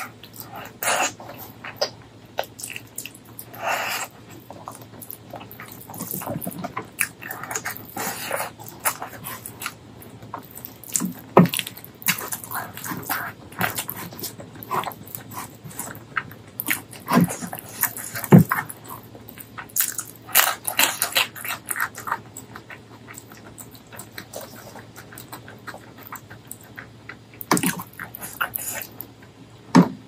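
Close-miked wet chewing, biting and lip smacking of a person eating braised pork leg curry with rice, in irregular short smacks, some much louder than others.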